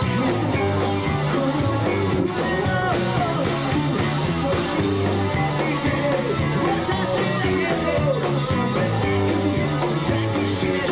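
Live rock band playing with a singer singing into a handheld microphone over the band.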